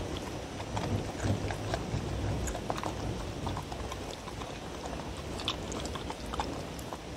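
A dog eating from a wooden bowl, with irregular wet chewing, crunching and small clicks as it picks up and bites pieces of vegetables and meat.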